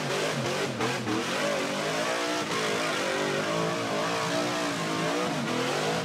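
Tube-chassis off-road buggy's engine revving hard under load on a steep mud climb, its pitch surging up and down over and over as the throttle is worked, with a couple of short knocks about a second in.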